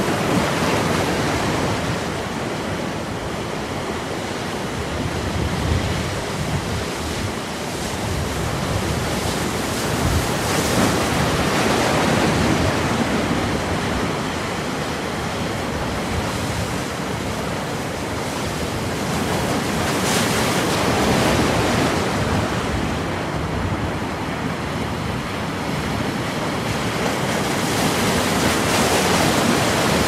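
Sea surf breaking and washing up a pebble beach, a steady rush of water that swells every several seconds as each wave comes in.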